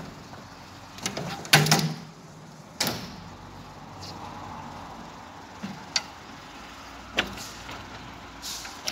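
Frameless 10 mm tempered-glass accordion panels being slid along their track and folded, with a series of sharp clicks and knocks as the panels move and meet. The loudest is a cluster of knocks about one and a half seconds in.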